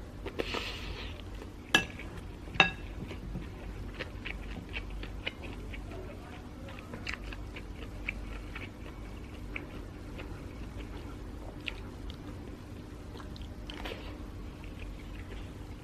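Close-miked eating of glutinous rice with pork ribs. Two ringing clinks of a utensil against the dish come about two seconds in, followed by steady chewing with small, soft mouth clicks.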